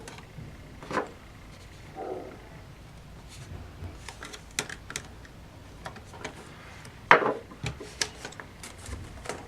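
Scattered plastic clicks and light knocks from an Asus U50F laptop's keyboard and case parts being handled by hand, with a louder knock about seven seconds in.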